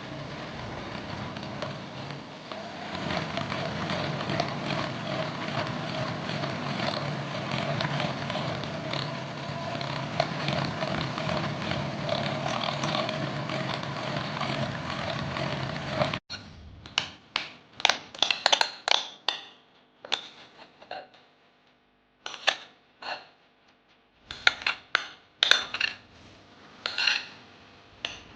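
An electric kitchen appliance motor running steadily for about sixteen seconds, then cutting off suddenly. After that come scattered sharp clinks and taps of utensils against a bowl.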